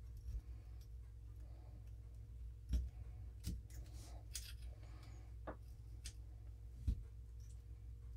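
Scattered small metal clicks and taps of steel revolver parts and a hand tool as a Ruger Redhawk's hammer and mainspring are worked back into the frame, the two sharpest about 3 and 7 seconds in, over a faint steady hum.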